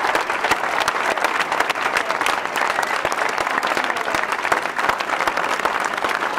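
Outdoor crowd of several hundred people applauding steadily, a dense crackle of many hands clapping.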